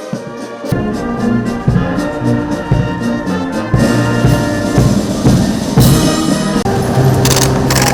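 Brass music: trumpets and trombones playing held notes and chords with percussion, growing louder about a second in.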